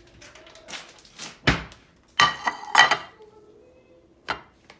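Plates clattering and knocking as they are handled at a kitchen cabinet: a few separate sharp knocks, the loudest about a second and a half in, with short ringing clinks a moment later.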